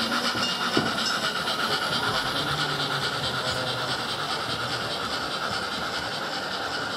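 Gauge 1 model steam locomotive running, with a steady steam hiss and rapid, even chuffing. There is a single click about a second in.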